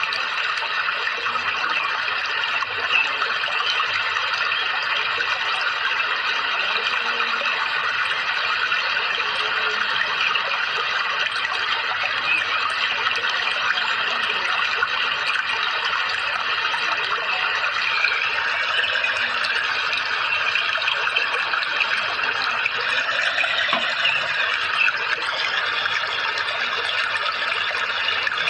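Steady flowing water, an even, unbroken rush and trickle used as a calming background for caged songbirds.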